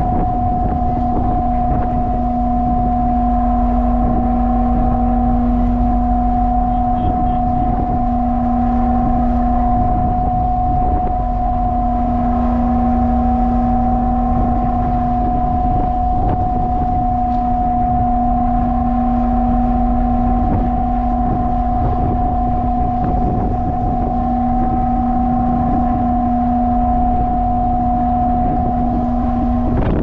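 A ship's machinery runs with a steady drone, a constant low hum and a higher hum held throughout, over a rough rumble of wind buffeting the microphone.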